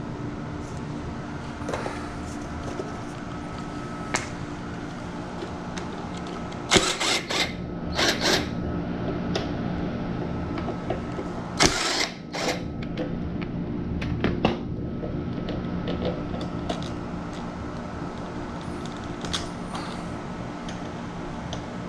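Metal hand tools and bike parts clinking and clanking now and then during a dirt bike teardown, with clusters of clanks about a third and halfway in. A steady hum runs underneath.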